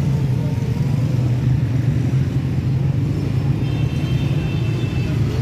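Street traffic noise: a steady low engine hum from motor vehicles running nearby, with a faint high-pitched tone near the end.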